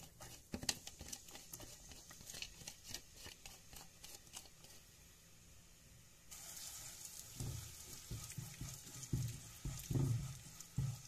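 Chopped onion dropping into oil in a nonstick pot, then stirred with a silicone spatula. A faint sizzle sets in about six seconds in as the onion starts to fry, with a few soft knocks of the spatula against the pot near the end.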